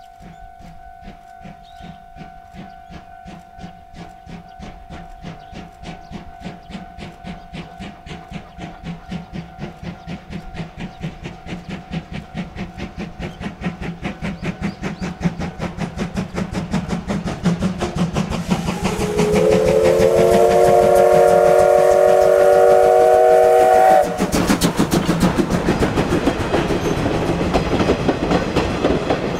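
C12-class steam tank locomotive pulling away with a train. Its exhaust chuffs grow louder and quicker as it approaches. About two-thirds of the way in its steam whistle blows a long chord for about five seconds and cuts off sharply, and then the locomotive passes close with a loud rush of exhaust and running gear.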